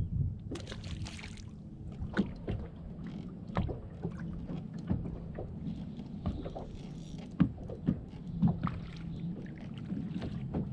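Small waves slapping and knocking against the hull of a bass boat, with scattered sharp knocks and clicks over a steady low hum.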